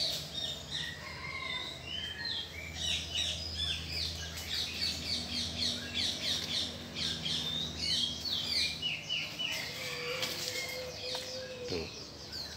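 Many small birds chirping in quick, repeated short calls over a steady low rumble. Near the end a single steady tone holds for about two seconds, then drops away.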